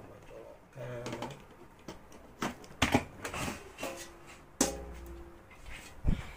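Handling noise at a workbench: several sharp clicks and knocks, the loudest about halfway through and another sharp one near the end, with faint voice sounds in between.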